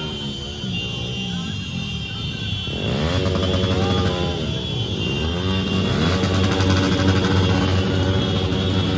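Many motorcycle engines running together in a slow-moving crowd of bikes. Several engines rev up and down from about three seconds in.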